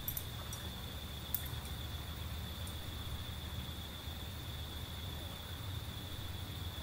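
Outdoor ambience: a steady high-pitched insect drone, with a low rumble of wind on the microphone. A few sharp clicks fall in the first three seconds, the loudest about a second and a half in.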